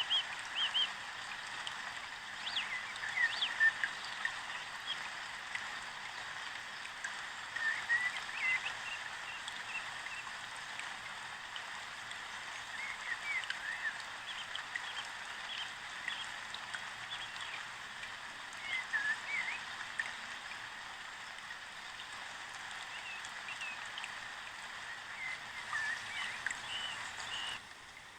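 Small birds chirping in short rising and falling calls, scattered throughout, over a steady rush like flowing water.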